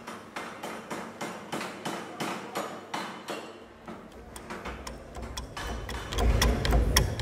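Steady, evenly spaced ticking, about three ticks a second, like a clock. From about halfway through a low rumble swells under it and is loudest near the end.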